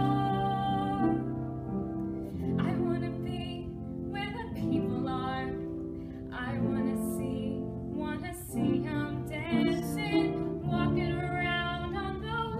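A woman singing a musical-theatre song solo in phrases with short breaks, over steady instrumental accompaniment.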